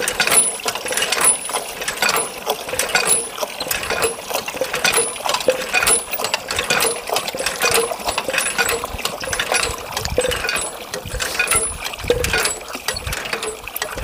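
Water from a hand pump's spout pours and splashes into a metal bucket as it fills, with irregular clinks and splashes. The pump's handle and rod mechanism clanks as it is worked.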